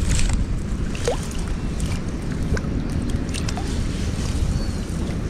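Wind rumbling on the microphone, with a few light clicks and taps and a short rising squeak about a second in.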